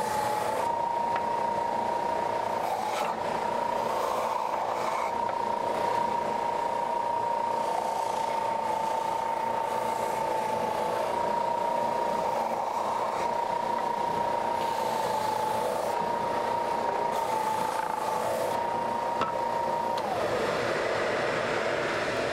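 Oscillating edge belt sander running with a steady whine, its pitch dipping slightly each time a wooden piece is pressed against the sanding belt. About 20 seconds in, the whine falls away as the motor winds down, and a steady rushing noise carries on.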